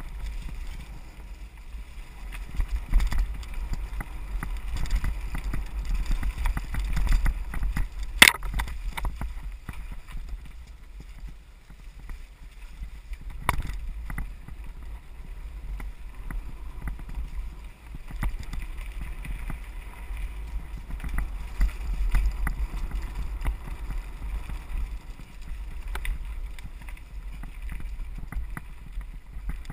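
Mountain bike riding down a rough dirt and rock singletrack: a steady low wind rumble on the microphone with a continuous rattle and clatter of the bike over the uneven ground. Two sharp knocks stand out in the first half.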